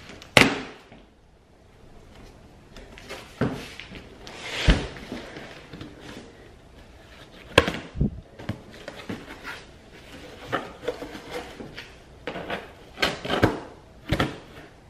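Cardboard boxes being handled and opened: flaps pulled back and lids lifted, with short scraping rustles and several sharp knocks, the loudest about half a second in.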